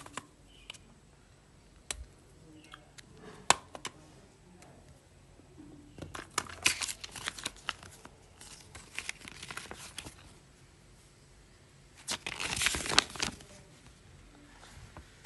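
Paper and thin plastic being handled and crinkled: two sharp clicks about two and three and a half seconds in, then bursts of rustling, the loudest from about twelve to thirteen seconds in as a folded paper instruction leaflet is opened out.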